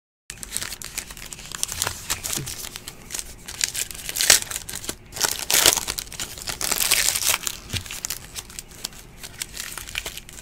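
Trading-card pack wrappers crinkling and tearing as the packs are opened by hand from the top, loudest between about four and seven and a half seconds in.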